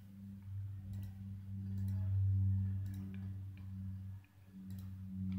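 Steady low electrical hum, with a few faint computer keyboard key clicks scattered through it.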